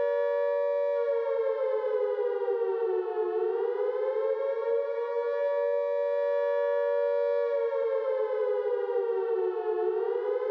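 Civil-defence warning siren sounding as an emergency alert. It holds a steady two-note tone, then sags in pitch and rises back, twice, about six and a half seconds apart.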